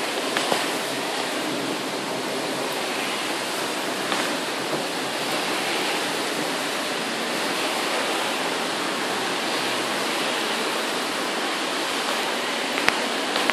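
Heavy thunderstorm rain falling steadily, a constant rushing hiss with a few faint taps.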